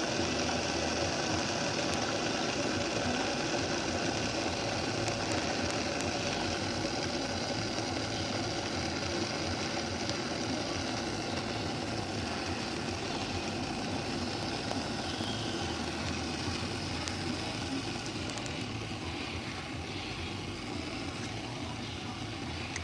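Ovente KG66S glass electric kettle heating water: a steady hissing rumble of water coming up toward the boil, slowly getting quieter near the end.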